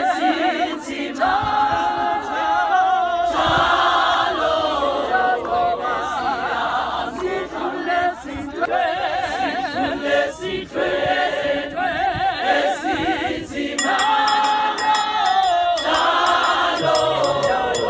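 A large group of women singing a church song together without instruments. From about three-quarters of the way in, regular hand claps join the singing.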